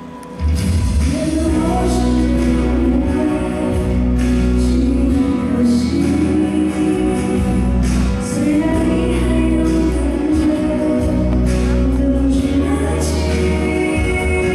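A woman singing a pop ballad live into a handheld microphone over an amplified band. The full band with heavy bass comes in about half a second in.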